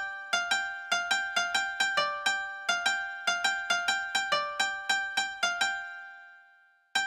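Background music: a light melody of short, ringing plucked or keyboard-like notes, about four a second. Near the end the notes stop and the last one dies away, then the tune starts again.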